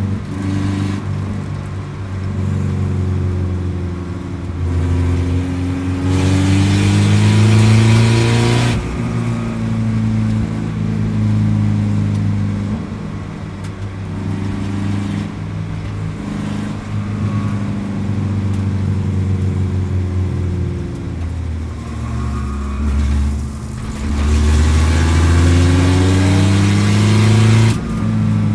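Spec Racer Ford Gen2's engine heard from inside the cockpit, climbing in pitch under throttle and dropping back sharply about nine seconds in, then sagging and climbing again later. A rush of wind and road noise swells during the hardest acceleration, about six seconds in and again near the end.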